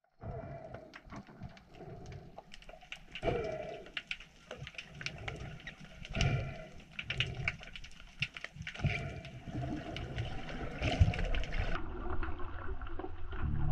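Water sloshing and bubbling around a camera in an underwater housing, with many irregular sharp clicks and knocks. The sound turns duller near the end as the camera goes fully under.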